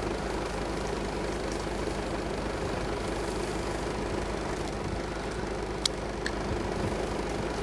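Vehicle engine idling steadily, with a single sharp click about six seconds in.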